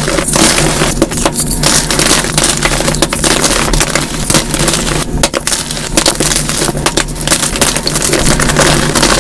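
Hands crushing and crumbling blocks of dyed gym chalk into powder: dense, continuous crunching and crackling with many sharp crumbly snaps, played back at double speed.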